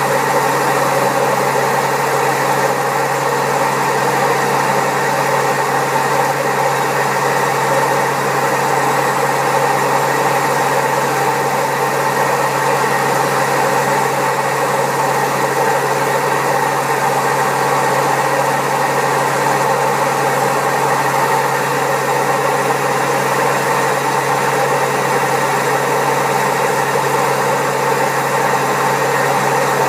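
Servis Caress 1300 washing machine on its spin, running loud and steady with a constant hum: the noise of very bad drum bearings.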